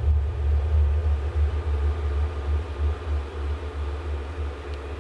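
Low, uneven rumble picked up by piezo contact microphones on metal wires, with a faint steady hum above it.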